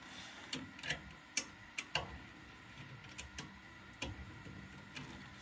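Light, irregular clicks and taps from thermostat wire and small tools being handled at a furnace control board's wiring terminal.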